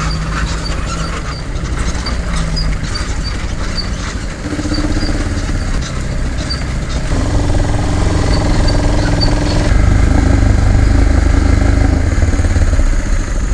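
Motorcycle engine running as it is ridden along at low speed, getting louder about seven seconds in.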